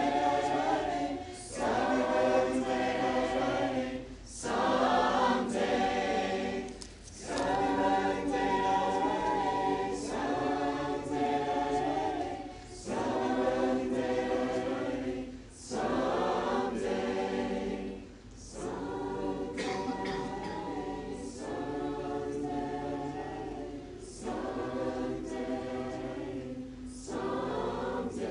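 A group of mixed voices singing a hymn a cappella in harmony, in phrases of a few seconds with short pauses for breath between them. The singing grows softer in the second half.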